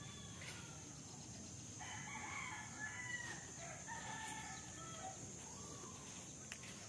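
Rooster crowing faintly, the crow starting about two seconds in and lasting around three seconds.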